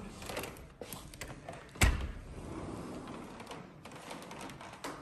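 Sliding glass balcony door being opened by hand: rattling and clicks, a sharp knock about two seconds in, then a steady low rumble and a few more clicks near the end.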